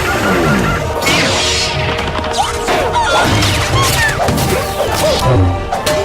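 Cartoon sound effects: a rapid run of crashes and whacks, and several short sliding whistle-like pitches, one falling at the start, over music.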